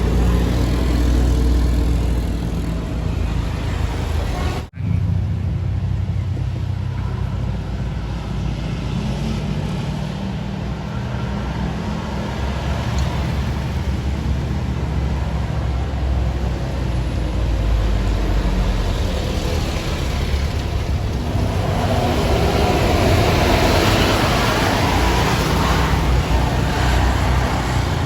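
Road traffic with a heavy engine's low steady drone. The sound cuts out for an instant about five seconds in. Near the end a vehicle passes close, louder and with more hiss.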